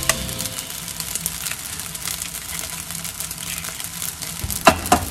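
Rice frying in a pan, a steady sizzle and crackle. Near the end come two sharp taps as an egg is cracked against the pan.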